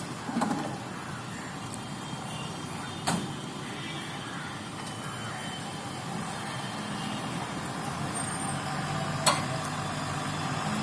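Diesel engine of a loaded dump truck running steadily, its hum growing slightly louder in the second half. Three short sharp knocks break through it, one near the start, one about three seconds in and one near the end.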